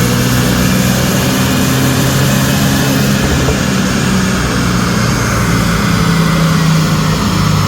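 Mercedes-AMG C43's twin-turbo 3.0-litre V6, fitted with upgraded turbos, running loudly at a fairly steady engine speed on a chassis dyno.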